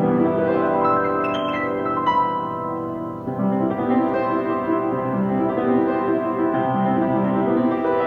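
Piano music: slow, held chords and notes, with a new chord coming in about three seconds in.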